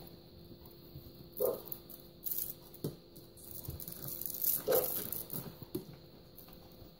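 Russian Blue kitten playing with a feather wand toy: irregular light taps and thumps of paws and toy on a hard appliance top, with brief rustling of the feathers, over a faint steady hum.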